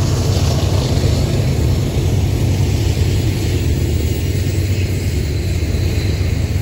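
Diesel locomotives of a freight train running by in a steady, loud low rumble.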